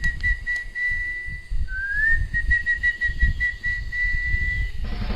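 Birdsong sound effect: a clear whistled phrase that slides up and then holds a warbling note, heard twice, over a low, gusting wind rumble. Music comes in just before the end.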